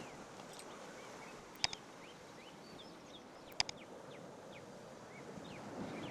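Outdoor ambience: a steady low background noise with scattered faint bird chirps, and two sharp clicks about two seconds apart.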